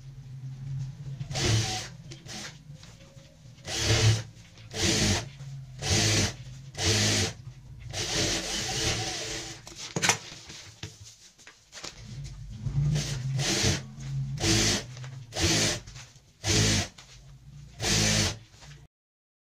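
Industrial single-needle sewing machine stitching straight quilting rows through a layered fabric strip, run in short stop-start bursts of a second or so, with a motor hum under each run. The sound stops abruptly shortly before the end.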